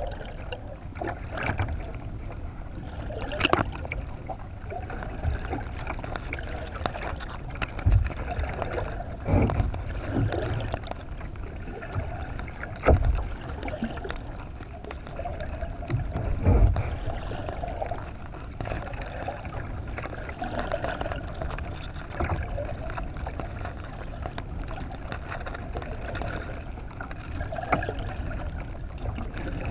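Water rushing and gurgling past a GoPro mounted underwater beneath a kayak hull, heard muffled through the camera's waterproof housing, with several low thumps spread through the first half.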